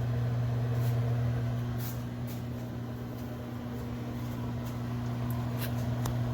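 Microwave oven running with a steady low hum, a few faint clicks over it, while it cooks a frozen rising-crust pizza.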